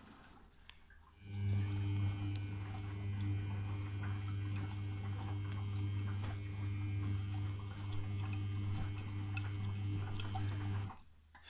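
Samsung front-loading washing machine topping up water during its second rinse: a steady mains hum from the water inlet valve that starts about a second in and stops shortly before the end.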